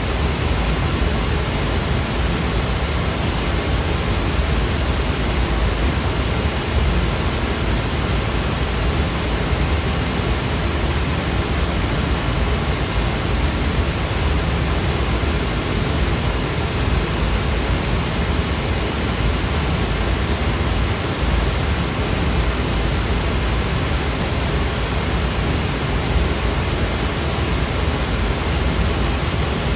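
Steady synthetic white-noise sound effect: an unbroken, even hiss across the whole range, heavier in the low end, with no change or events.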